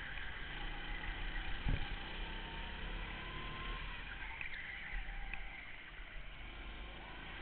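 Go-kart engine running as the kart drives round the track, heard from on the kart itself: a steady rumble with a faint whine that rises slightly, and a single sharp thump about two seconds in.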